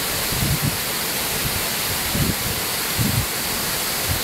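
Steady rushing of water falling at a waterfall, with a few short low rumbles of wind buffeting the microphone.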